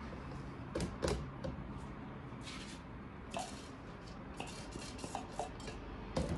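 A plastic food-processor bowl being tipped and knocked against a plastic container to empty out dry breadcrumbs: a couple of sharp plastic knocks about a second in and again near the end, with short dry rustles of crumbs sliding and falling in between.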